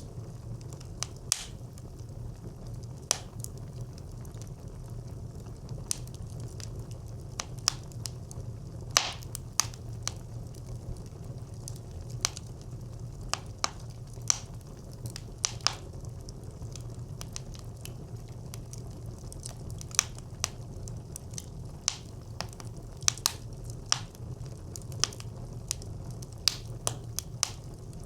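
Wood fire burning in a brick clay stove: a steady low rumble of flames with sharp, irregular pops and crackles of burning wood.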